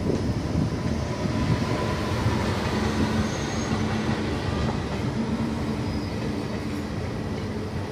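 Indian Railways self-propelled accident relief medical van running on the rails: a steady rumble of engine and wheels with a faint steady hum, slowly fading.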